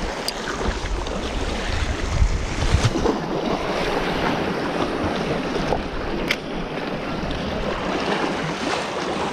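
Sea waves washing against shore rocks, with wind buffeting the microphone, the buffeting heaviest in the first few seconds.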